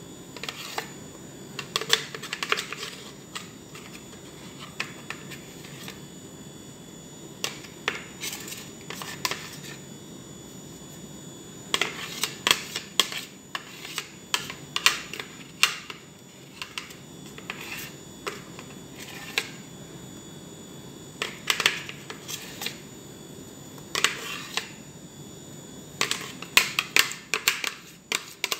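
A metal utensil scraping and tapping against a plastic blender jar as thick batter is scraped out, heard as clusters of sharp clicks and knocks with quieter gaps between them.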